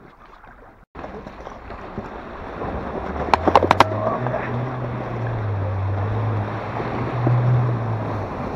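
A Chevrolet Niva's engine pulling under load as the car pushes through an ice-covered puddle, with water and broken ice sloshing around it. There is a quick cluster of sharp cracks from breaking ice about three seconds in. The engine note swells near the end, then drops away.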